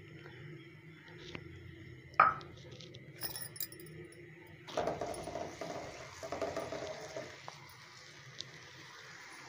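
A single sharp metallic clink about two seconds in, then soft handling and scraping sounds as a rolled-out paratha is laid onto an iron tawa.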